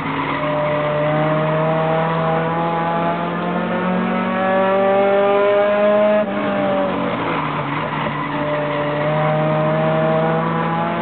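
Short-track race car engine at full song, its pitch climbing steadily for about six seconds, then dropping sharply and climbing again over the last few seconds.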